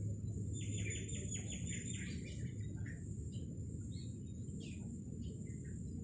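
Birds chirping: a quick run of about eight chirps in a little over a second near the start, then scattered single calls. Under them runs a low steady rumble and a thin, high, steady whine.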